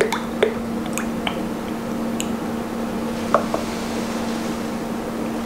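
10W fork oil glugging from a bottle into an upright motorcycle fork tube, with a few short, rising, bubbly plops as trapped air escapes through the oil.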